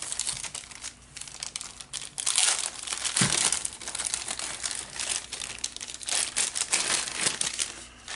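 Packaging crinkling as a small multimeter is unwrapped by hand, in uneven rustling bursts that stop near the end.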